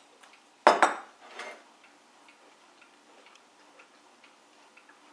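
A spoon knocking twice against a porcelain bowl about a second in, ringing briefly, with a softer scrape just after; otherwise only faint ticking.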